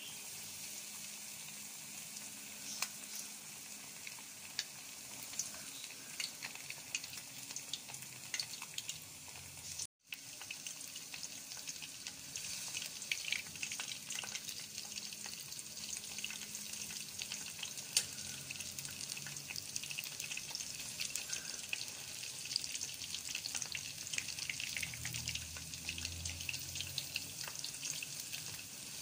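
Flour-coated chicken legs deep-frying in hot oil: a steady sizzle full of small crackles and pops. The sound cuts out for an instant about ten seconds in.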